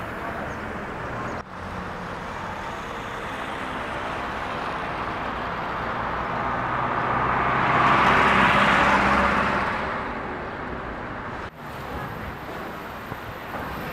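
Diesel engine of an Iveco vacuum tanker truck running steadily, with a rushing noise that swells and fades around the middle.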